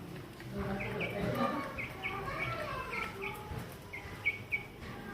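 Baby chicks peeping, a steady run of short high chirps about two a second.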